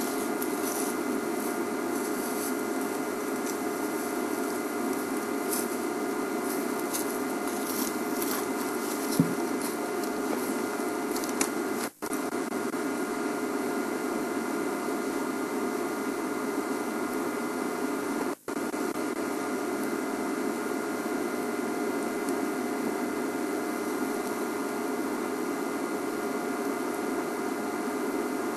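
A steady, even hum with several faint steady tones in it and no speech. The sound cuts out completely for a moment twice, about twelve and eighteen seconds in.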